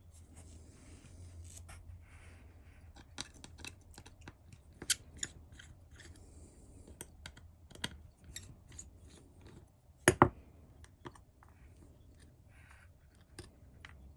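Small metallic clicks and scrapes of a small screwdriver turning out the tiny screws of a Casio digital watch's back cover, at irregular intervals, with a sharper double click about ten seconds in.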